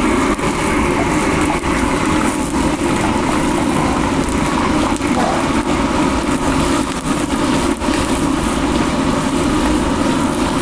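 A loud, steady mechanical drone with a constant hum, unchanging throughout.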